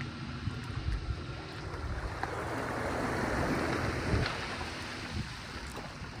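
Wind rumbling on the microphone over small lake waves lapping against a dock and the hull of a moored sailboat, with a louder rushing swell between about two and four and a half seconds in.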